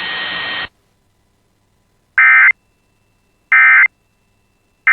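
Emergency Alert System end-of-message data bursts: short, harsh, warbling digital tone bursts of the SAME code, two of them about a second and a half apart and a third just starting at the end, marking the end of the alert. Before them, a steady broadcast hiss cuts off suddenly under a second in.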